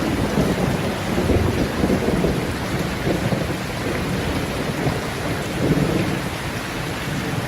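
Steady heavy rain with low, rolling thunder that swells in the first two seconds and again around six seconds in.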